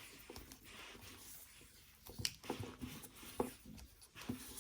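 Faint rustling and a few small clicks and ticks of insulation tape being wrapped by hand over the rope and the knot at the magnet.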